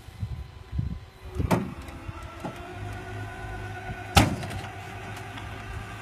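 Flatbed tow truck's machinery running with a steady whine while a car is winched out of a ditch, with two sharp clanks, one about a second and a half in and a louder one just after four seconds.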